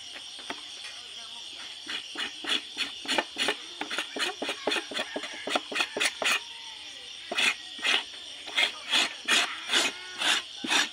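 Knife blade scraping a dried animal hide, repeated scraping strokes about two to three a second, starting about two seconds in, with a short pause around six seconds in.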